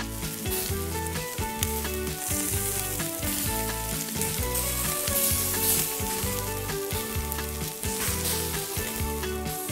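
A small piece of beef sizzling on a miniature charcoal grill, loudest in the middle, over background music.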